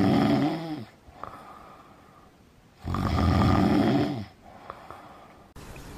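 A man snoring loudly: two long snores about three seconds apart, each falling in pitch as it ends.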